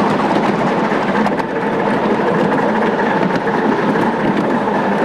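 A 7.25 inch gauge miniature train running along its track, heard from the passenger cars as a steady rumble of wheels on rails.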